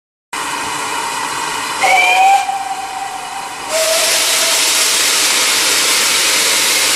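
Steam locomotive blowing off steam with a loud, steady hiss. A short whistle note sounds about two seconds in. A lower note joins near four seconds as the hiss grows louder.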